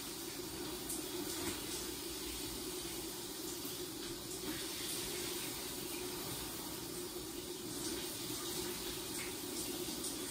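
Shower running: a steady hiss of falling water.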